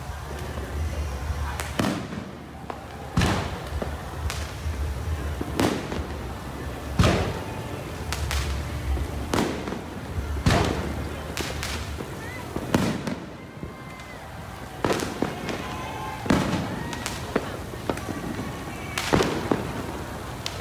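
Aerial fireworks going off, a string of sharp bangs and cracks at uneven intervals, roughly one every second or so.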